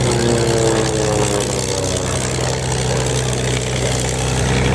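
Piston aircraft engines droning as a plane flies past, the engine note falling in pitch over the first couple of seconds, over a steady low hum.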